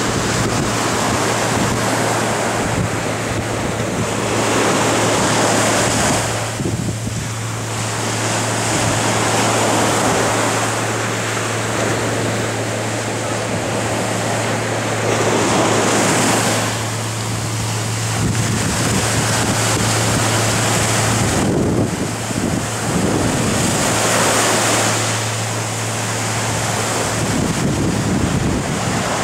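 Ocean surf breaking and washing up a sandy beach, the rush of water swelling and easing every four to six seconds, with a steady low hum underneath.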